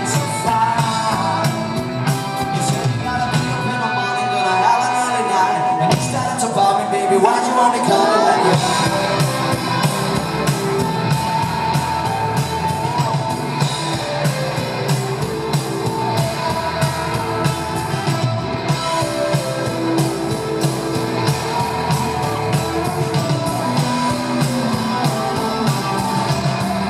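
Rock band playing live: electric guitar, bass and a steady drum beat, with singing over it.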